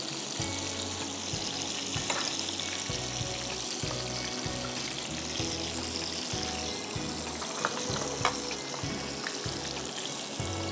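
Oil sizzling steadily in a frying pan on a gas burner, over background music with a low repeating beat. A few light clicks about two seconds in and near eight seconds.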